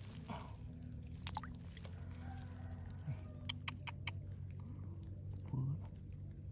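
Small splashes and drips of water as a hand scoops a small fish from shallow water in a bamboo basket, a few sharp clicks standing out, over a steady low hum.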